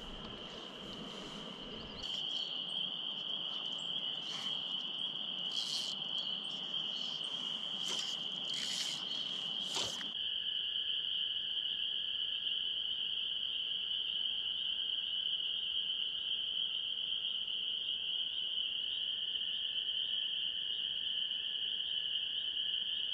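Steady, high-pitched spring night chorus of calling frogs by the lake marsh, with a lower, fainter trill joining in after about ten seconds. A few short clicks sound in the first ten seconds.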